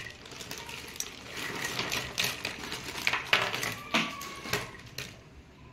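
Small plastic drip-irrigation fittings and emitter stakes clattering and clicking against each other as they are handled and rummaged through in a plastic bag, in irregular clicks with a few louder knocks.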